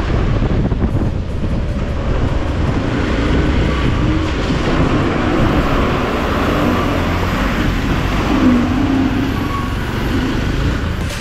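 Motorcycle running at low speed through mud and water, with steady engine and road noise.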